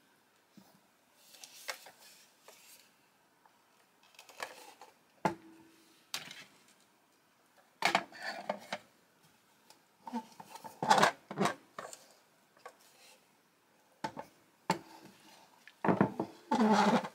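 Handling noise from a doll-sized serving cart and its lift-off tray being turned over and set down: scattered light clicks, knocks and rustles, busier in the second half, with a denser, louder rustling near the end.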